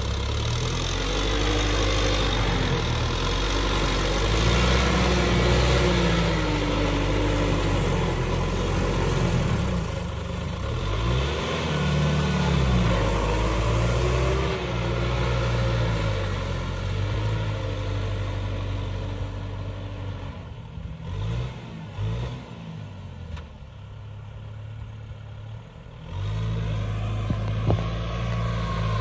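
Kubota M6040 tractor's four-cylinder diesel engine working under load as it pulls a disc plough through sand. The engine note rises and falls repeatedly. It goes quieter and thinner for several seconds past the middle, then comes back strongly.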